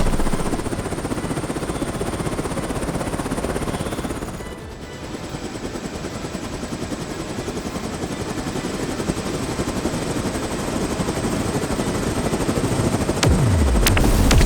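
Helicopter rotor sound effect: a fast, steady chopping that thins out about four and a half seconds in, then builds back up. A sharp crack comes near the end.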